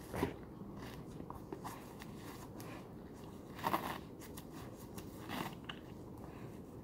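Bernese mountain dog chewing a tennis ball, gnawing the rubber and tearing away its felt, in irregular crunches and crackles, with a louder burst of crunching a little past halfway.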